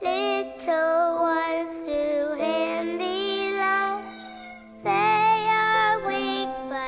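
Background music: a song with a high child's singing voice in phrases over steady held accompaniment notes.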